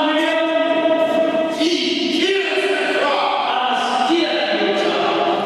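Voices singing a slow melody in long held notes that step from pitch to pitch.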